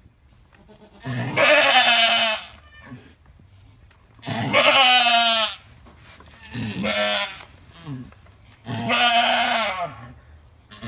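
Alpine doe in labour bleating loudly, four long calls each about a second long with the third one quieter, as she strains to push out a kid.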